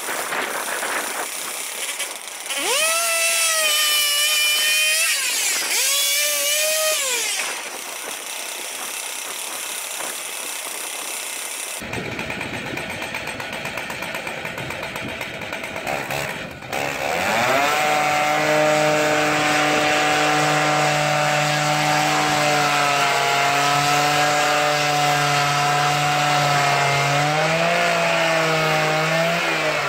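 Petrol engine of a swing-blade sawmill revved twice in short rising bursts. After an abrupt change it runs loud and steady while the saw head is pushed along an ash log, dipping and rising in pitch near the end.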